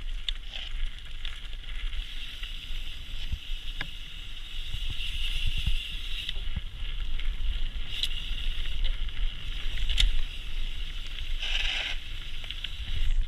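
Mountain bike tyres rolling over a gravel path, with a steady rushing hiss, low wind rumble on the camera microphone and scattered clicks of loose stones, and a louder rasp near the end.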